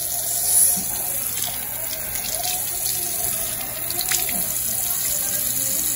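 Bathroom sink faucet running in a steady stream, with the water splashing over a small hand and toothbrush held under it.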